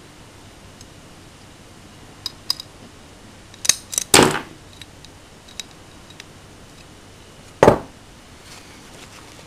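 Small metal parts of a Hi-Capa airsoft pistol being handled, giving light clicks, then a quick cluster of sharper clacks about four seconds in. Near the end comes a single louder knock as a part is set down on a wooden table.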